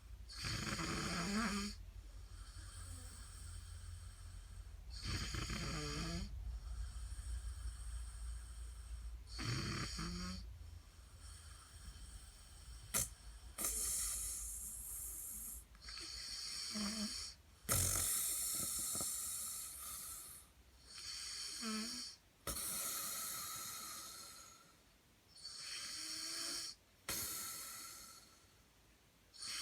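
A 15-year-old boy snoring in his sleep, a snore with each breath, repeating every few seconds.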